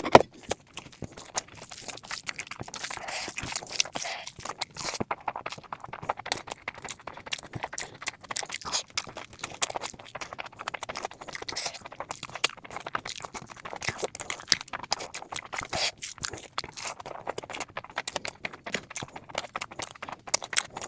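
Close-miked eating of mutton fat curry with rice: irregular wet chewing, smacking and crackling clicks, with one sharp loud click at the very start.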